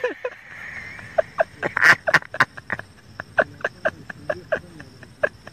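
A man laughing hard with his mouth wide open, mostly without voice: a run of quick, breathy, wheezing gasps, about four or five a second.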